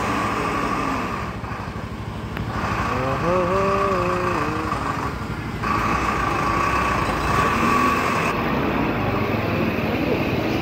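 Vehicle engine running among street traffic, with a steady high whine that cuts in and out. A short wavering tone sounds about three to five seconds in.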